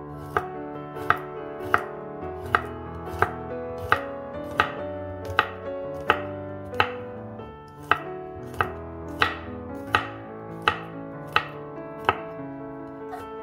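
Kitchen knife slicing garlic cloves on a wooden cutting board: about seventeen crisp knocks of the blade on the board at an even pace, roughly one every 0.7 s, with a short break about halfway through. Soft background piano music plays underneath.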